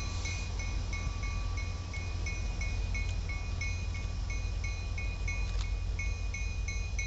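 A railroad grade-crossing bell dinging steadily, about three strikes a second, over a steady low rumble.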